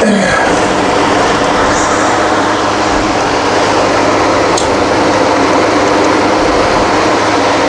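A loud, steady mechanical hum and rushing noise that does not change, with a brief falling sound at the very start and a faint click about four and a half seconds in.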